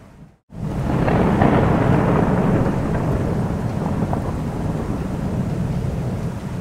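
A long roll of thunder over steady rain. It swells in suddenly about half a second in, after a split-second drop to silence, is loudest in the first couple of seconds, and keeps rumbling on.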